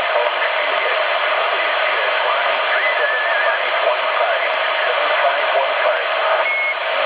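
CB radio receiving single sideband (USB) on 27.555 MHz: steady loud hiss and static with faint, garbled voices of distant stations under it. A brief wavering whistle comes about three seconds in, and a short steady tone near the end.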